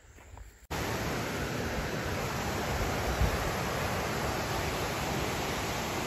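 Steady rushing of water over the rocks of a stream's small rapids, coming in suddenly just under a second in after a brief quiet moment.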